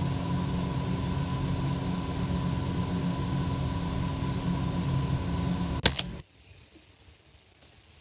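A steady mechanical hum with a thin high whine over it, ending in a sharp click about six seconds in, after which it cuts off suddenly.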